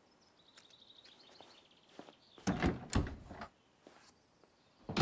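Faint rapid clicking, then two loud knocks around the middle and a heavier thud at the very end: a door being opened and shut as someone leaves the room.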